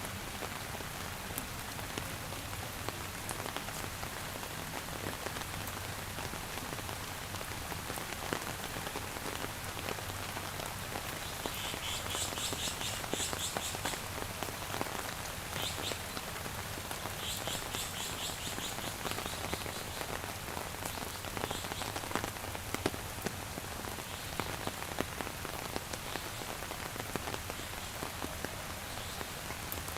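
Steady rain falling, with scattered drops ticking on a surface. Twice around the middle, an animal gives a rapid, high trilling call lasting about two seconds each time.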